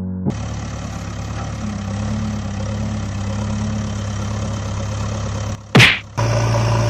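A vehicle engine idling steadily with a low hum, cut near the end by a short loud whoosh, after which a slightly different engine hum takes over.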